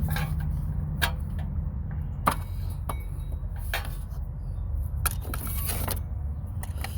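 Metal tools and parts being handled in an engine bay: a handful of separate light clinks and knocks, with a rustling cluster of them about five seconds in, over a steady low hum.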